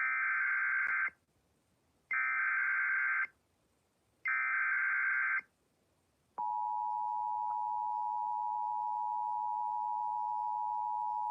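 Emergency Alert System broadcast tones announcing a severe thunderstorm warning: three buzzy one-second bursts of SAME header data about two seconds apart, then the steady two-tone EAS attention signal starting about six seconds in.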